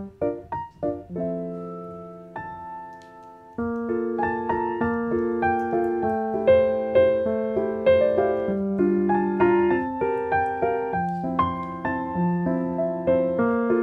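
Background piano music: a few quick short notes, then a held chord that fades away, and from about three and a half seconds in a steady melody of longer notes over a repeating chord pattern.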